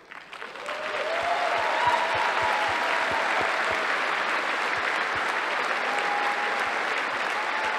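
A large audience applauding, building up over the first second and then holding steady.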